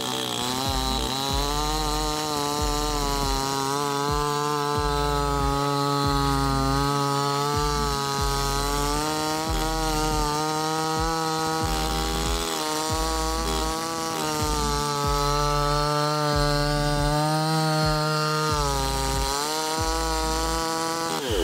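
A 60 cc two-stroke petrol chainsaw with a 28-inch bar runs at full throttle, cutting through a thick log. The engine note holds fairly steady under load, wavering slightly and dipping briefly near the end.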